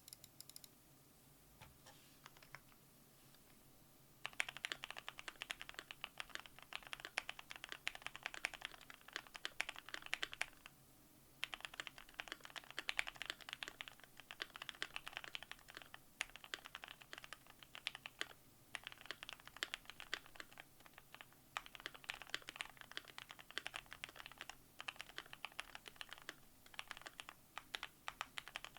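Typing on a Keychron Q1 mechanical keyboard with Lavender switches lubed with Krytox 205g0, GMK Bushido keycaps, and a poly-filled, tape-modded case. A few single keystrokes at first, then fast continuous typing from about four seconds in, broken by several short pauses.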